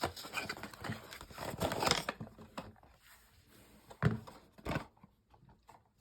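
Cube packaging being opened by hand: rustling and scraping with small clicks for about two seconds, then two sharp knocks about four and five seconds in.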